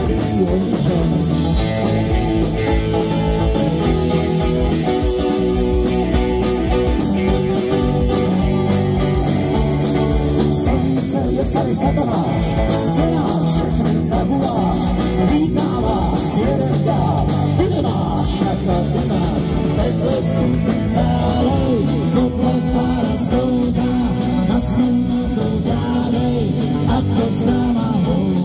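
Live rock band playing: electric guitar, bass guitar, drum kit and keyboards, with a woman singing over parts of it.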